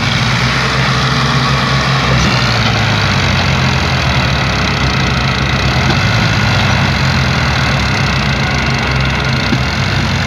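Al-Ghazi 65 hp tractor's diesel engine running loud and steady under heavy load, straining to haul an overloaded sugarcane trolley. Its pitch sags slightly in the first couple of seconds, then holds.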